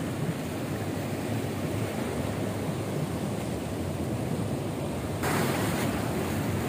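Ocean surf washing and breaking against reef rocks, a steady rush with wind on the microphone; the rush grows louder about five seconds in.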